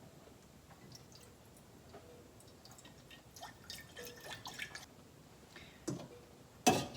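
Water dripping in a kitchen: scattered small drips and clicks that grow busier after a few seconds, then two sharper knocks near the end, the second the loudest.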